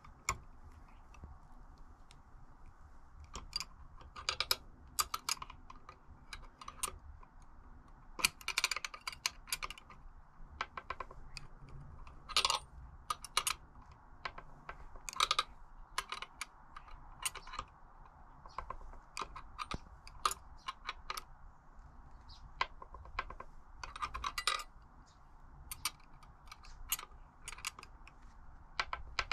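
Small metal tools and parts clinking and clicking irregularly as they are handled and set down, a few clinks ringing briefly.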